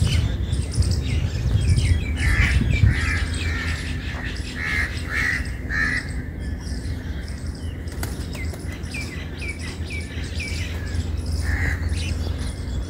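Birds chirping and calling. Short, quickly falling chirps repeat throughout, and a few harsher calls come at about two to three seconds in, around five to six seconds, and near the end.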